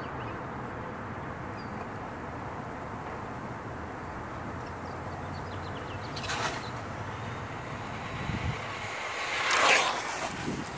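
Outdoor wind noise on the microphone, a steady rushing with a low rumble. Gusts swell about six seconds in and more strongly near the end, when loose blossoms and leaves are blowing across the street.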